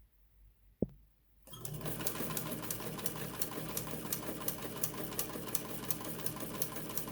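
Vintage Signature sewing machine: a single click about a second in, then the machine starts and runs steadily at speed with a regular clicking, stitching a decorative pattern.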